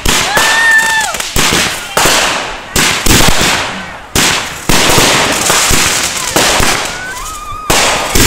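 Consumer aerial fireworks going off: a rapid string of sharp bangs, more than one a second, each dying away before the next, as shells launch and burst overhead.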